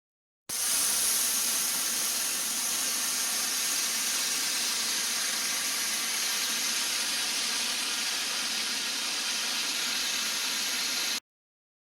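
A steady hissing noise, strongest in the high treble, that starts abruptly and cuts off suddenly near the end.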